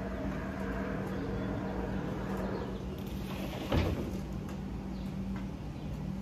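A single wooden knock about four seconds in, as a roof board is set against the gazebo's wooden rafters, over a steady low hum.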